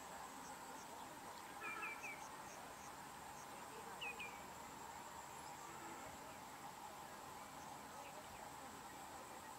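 Faint steady insect drone over the field, broken by a few short bird chirps: three close together about two seconds in and two more about four seconds in.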